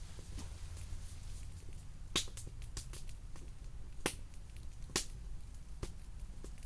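Wood campfire crackling, with sharp single pops from the burning wood about two, four and five seconds in and smaller ticks between, over a steady low rumble.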